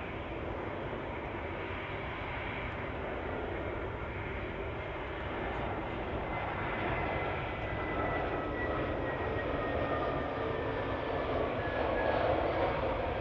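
Airbus A380's four Rolls-Royce Trent 900 jet engines running as the airliner rolls past on the ground: a steady jet rumble with a faint whine that slowly drifts down in pitch, growing louder toward the end.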